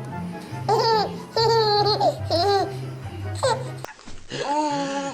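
A baby laughing in several short, high-pitched bursts over background music.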